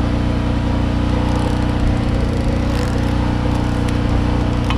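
Steady low mechanical hum of a running engine, holding one even pitch throughout, with a few faint light ticks over it.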